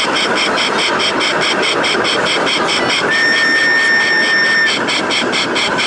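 1/16 scale RC tank running, its engine sound steady and rhythmic at about five or six beats a second. A thin high steady tone joins about three seconds in and stops after about a second and a half.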